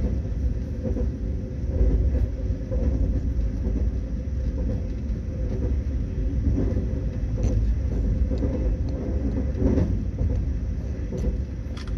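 Steady low rumble of a moving vehicle, with scattered faint knocks and clicks.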